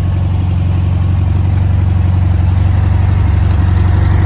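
The air-cooled flat-four engine of a freshly restored 1973 VW Super Beetle running steadily at low revs with an even, low hum, sounding healthy.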